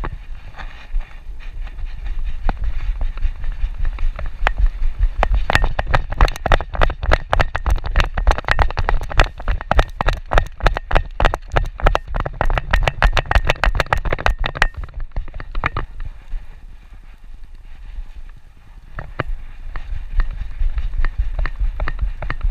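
A dog's claws and pads clicking rapidly on pavement as it trots, several clicks a second, heard from a camera strapped to its back with a low rumble of harness and body movement. The clicking is densest in the middle and thins out after about two-thirds of the way through.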